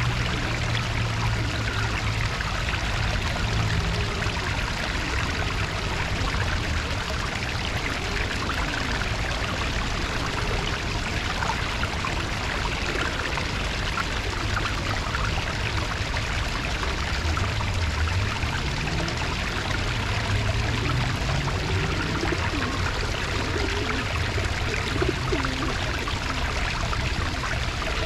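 Steady rush of running water, an even splashing hiss with no breaks, over a low wavering hum.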